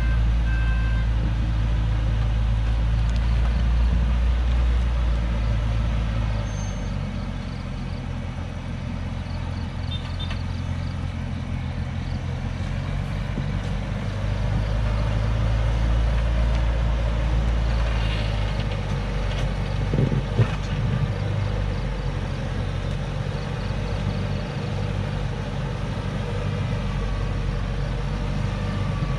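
A Hoa Mai truck's diesel engine runs at a low, steady drone as the truck creeps down a steep dirt track, its level rising and falling. There are a couple of sharp knocks about twenty seconds in.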